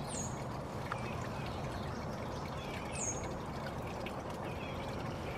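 Steady outdoor background hiss. A thin, high chirp that falls in pitch comes twice, about three seconds apart.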